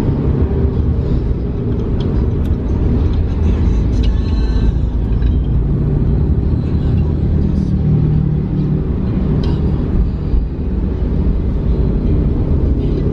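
Car cabin noise while driving: a steady low rumble of engine and road noise.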